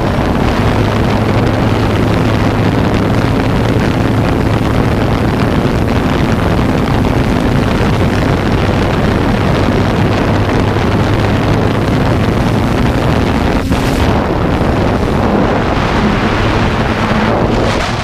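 Quadcopter drone's propellers and motors humming steadily, with wind rushing over its microphone.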